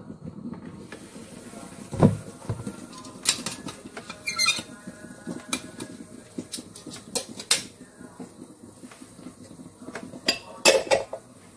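A rice cooker lid clicks open, then metal tongs clink and scrape in the inner pot and a ceramic plate is set down inside it. It comes as a run of sharp knocks and clinks, loudest about two seconds in and again near the end.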